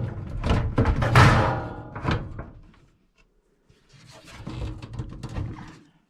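A microwave oven being handled and pushed into its cabinet opening: a run of knocks and thunks with scraping over the first couple of seconds, then, after a short pause, softer scraping and shuffling.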